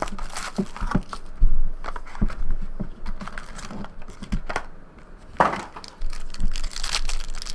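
Unboxing a shrink-wrapped trading-card box by hand: plastic wrap crinkling, cardboard and a foil card pack being handled, with scattered taps and rustles. The loudest rustle comes about five and a half seconds in.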